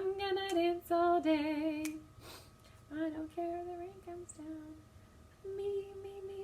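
A woman singing a simple song melody unaccompanied, in short phrases with pauses between them, holding a steady note near the end.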